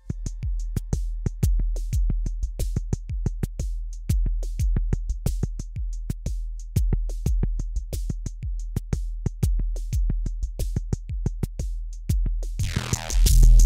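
Electronic music from synthesizers and an iPad drum-machine app: quick, uneven clicky percussion hits over a deep sustained bass drone, with a loud, dense synth sound swelling in near the end.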